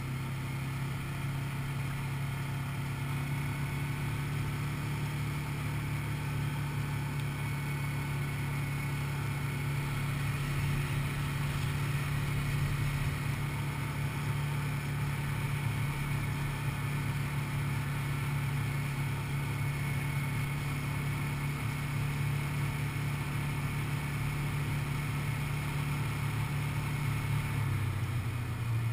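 ATV engine running at a steady cruising speed on a paved road, an even drone that drops slightly in pitch near the end.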